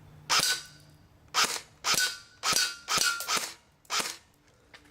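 Airsoft rifle firing single shots at a whipped-cream can, about six sharp cracks at uneven intervals over four seconds.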